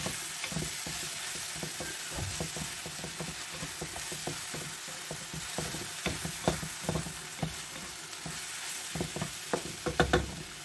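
Diced eggplant and garlic sizzling in hot oil in a black wok, stirred with a wooden spatula that scrapes and knocks against the pan. The knocks get louder near the end.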